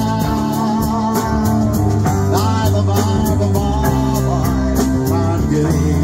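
Live band playing a slow ballad: keyboard chords, bass and drum kit, with a steady cymbal beat of about three ticks a second and a wavering melody line on top.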